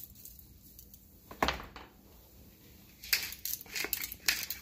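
A single knock about a second and a half in, then a run of irregular crinkling and rustling as the foil-lined sheet tray is handled.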